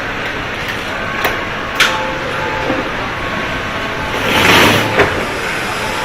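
Car assembly line noise: steady machinery din with a few sharp clanks and a short hiss about four seconds in.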